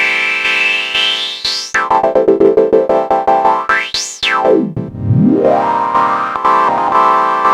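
Arturia MicroFreak synthesizer playing a held note while its resonant filter sweeps up and down in wide arcs, dipping very low about five seconds in before rising again. From about two seconds in the note is retriggered rapidly, many times a second.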